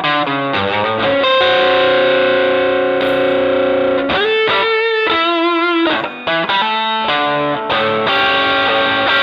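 Electric guitar played through an MXR Dynacomp compressor pedal: picked single notes, a long note held with even sustain from about one to four seconds in, then notes with wavering vibrato before more picked notes.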